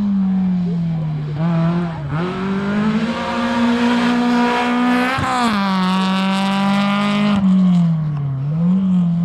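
Rally car engine driven hard, the revs rising and dropping repeatedly with throttle and gear changes; a louder, harsher stretch in the middle cuts off abruptly about seven seconds in.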